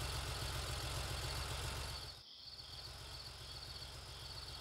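Cartoon car engine running with a low, steady rumble as the police car drives off, dropping quieter after about two seconds. Crickets chirp faintly throughout.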